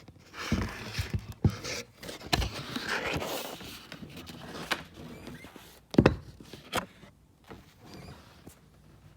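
Handling noise from unpacking: rustling of paper or packaging with scattered knocks and thumps, the loudest thump about six seconds in.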